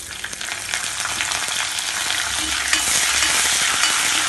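Hot oil in an iron kadai sizzling as fresh curry leaves are dropped into a tempering of mustard seeds, urad dal and dried red chillies. The sizzle starts suddenly and keeps on steadily, with a steel ladle stirring and clicking against the pan.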